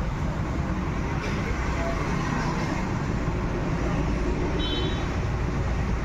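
Steady low background rumble of motor vehicles, with a brief high chirp about three-quarters of the way through.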